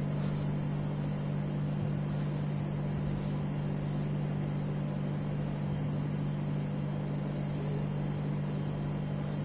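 Steady low hum of room background noise, with a few faint strokes of a marker on a whiteboard.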